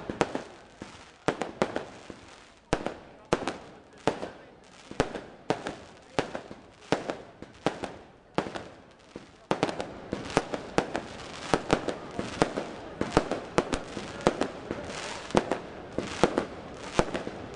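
Aerial fireworks going off: a run of sharp bangs from shells bursting overhead, about one or two a second. From about halfway the bangs come closer together over a louder, steady hiss.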